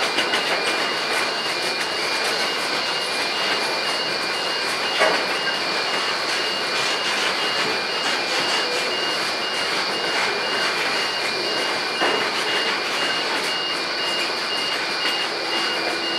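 Container wagons of a long intermodal freight train rolling past, giving a steady rumble of wheels on rail with two sharp knocks, about five seconds in and again near twelve seconds. A pulsing high-pitched beep sounds throughout.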